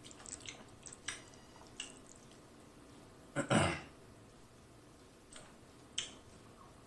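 Quiet eating sounds: scattered light clicks and taps of a wooden spoon and bamboo chopsticks in rice and a glass sauce bowl, with a brief louder noise about three and a half seconds in and a sharp click near the end.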